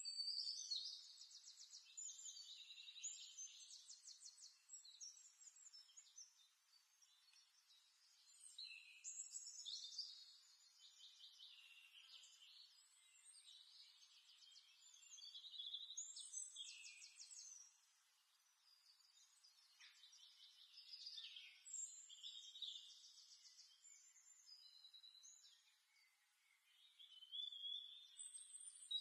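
Faint birdsong: phrases of quick chirps and trills, each a few seconds long, repeating with short pauses between them.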